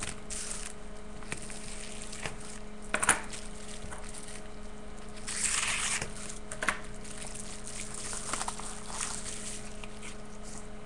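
Packaging rustling and tearing in irregular bursts as a mailed envelope is opened and the trading cards inside are handled, with a few sharp clicks, over a steady low electrical hum.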